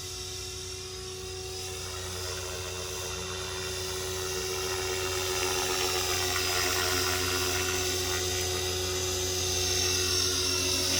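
Blade Fusion 480 electric RC helicopter in flight: a steady, high-pitched whine from its motor and spinning rotors, growing gradually louder in the first half.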